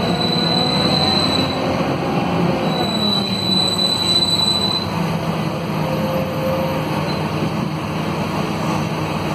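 Cabin sound of a Scania K230UB city bus underway: its Scania DC9 five-cylinder diesel running steadily through the ZF Ecomat automatic gearbox, heard from among the seats. A high, thin squeal sounds twice in the first five seconds.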